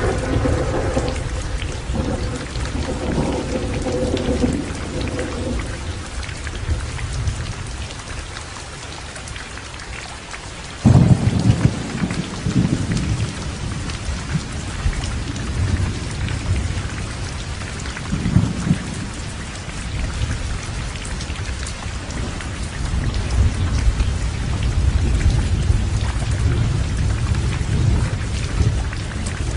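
Heavy rain falling steadily through a thunderstorm, with low rolling thunder. About a third of the way in comes a sudden, loud thunderclap, followed by more rumbles of thunder.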